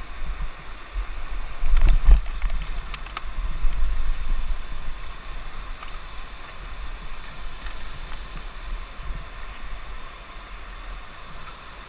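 Whitewater river rushing over rocks in a shallow rapid, heard from a raft, with a low rumble buffeting the microphone. A handful of sharp clicks and knocks come about two to three seconds in.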